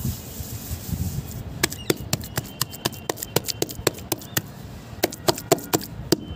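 Hands squeezing and pressing wet cement paste in a plastic bucket: a low, muddy squishing, then from about a second and a half in a run of sharp, irregular wet smacks and pops as the palms work the slurry.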